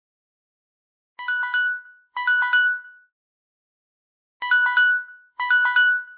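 Smartphone alarm tone ringing: short chiming phrases of a few quick notes, two phrases about a second apart, then a pause and the pair again.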